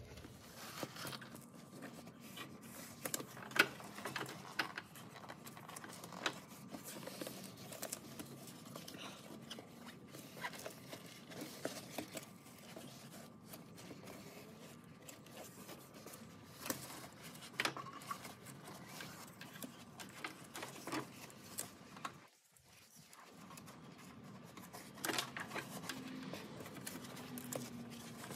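Foam sound-insulation pad being pushed and slid by hand into place against the engine-bay panels: soft rustling and scraping with scattered light knocks and clicks.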